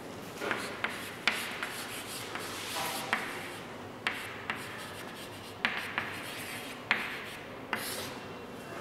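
Chalk writing on a chalkboard: scratchy strokes broken by sharp taps each time the chalk strikes the board.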